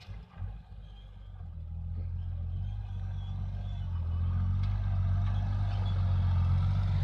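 Deutz-Fahr M620 tractor's diesel engine running steadily under ploughing load, pulling a reversible plough with a packer roller; a low drone that grows louder from about two seconds in as the tractor comes close.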